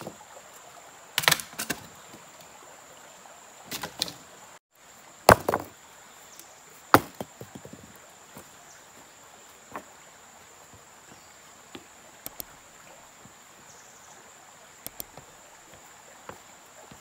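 Dry dead branches struck against river stones and snapped, giving several sharp cracks in the first seven seconds, then only scattered faint clicks. A steady high insect drone runs underneath.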